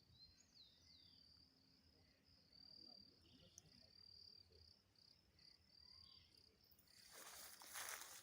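Faint, high-pitched insect trilling in repeated pulses, with a couple of short chirps about half a second in. Near the end, rustling footsteps start.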